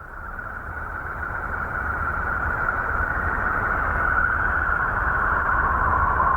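Space sound attributed to a planet: a steady, eerie rushing hiss with a deep rumble beneath it, slowly growing louder and sliding slightly lower in pitch.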